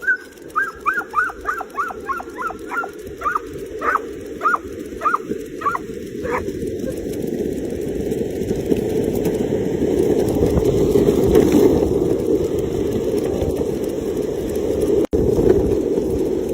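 An excited dog gives about a dozen short, high yelps, coming more slowly over the first six seconds. Then a steady low rumble takes over and grows louder.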